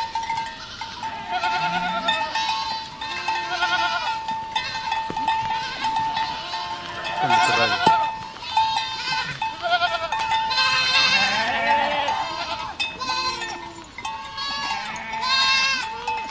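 A herd of goats bleating, many animals calling over one another in quavering cries of different pitches, some rising and some falling. A steady thin tone sounds beneath them.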